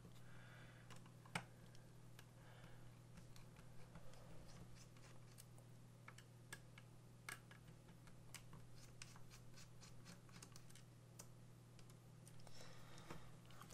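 Near silence: faint, scattered clicks and light scratches of a precision Phillips screwdriver and fingers working small screws out of a drone's plastic body, over a low steady hum.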